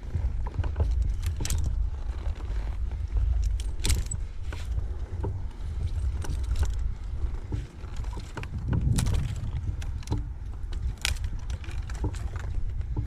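Scattered light clinks and rattles over a steady low rumble.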